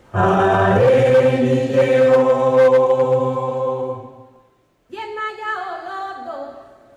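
Music for the performance: a chanted vocal held on a long note over a low drone, breaking off about four seconds in. It is followed by a new sung phrase whose pitch slides and bends.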